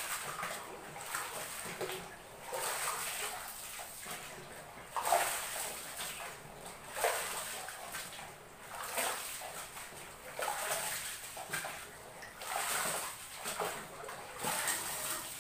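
Soybeans being churned by hand in a plastic drum to mix in tempe starter (ragi): wet sloshing and rustling that comes in uneven surges every second or two.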